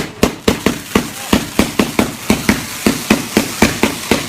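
Firecrackers going off in a rapid string, about four sharp bangs a second, starting suddenly with one loud bang.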